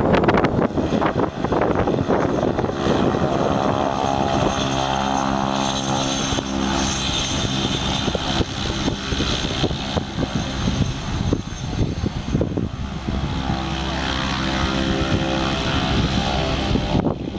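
Cessna 208B Caravan's single Pratt & Whitney PT6A turboprop running at taxi power: a steady propeller drone with a higher turbine whine above it.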